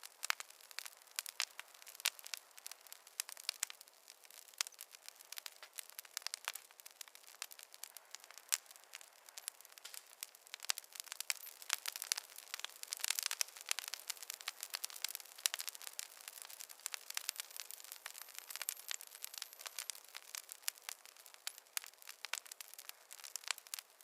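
Wood fire crackling in a fireplace: a dense, irregular run of small pops and snaps, busiest around the middle.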